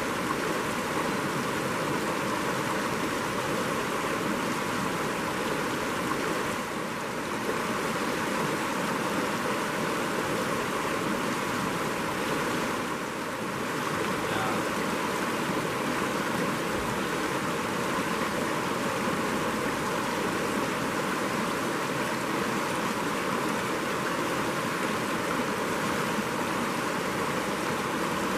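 Shallow rocky stream rushing steadily, dipping slightly in level twice.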